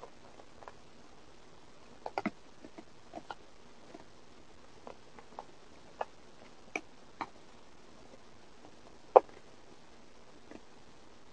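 Cat eating close to the microphone: irregular short clicks and crunches a second or so apart, one louder crunch about nine seconds in, over a faint steady hiss.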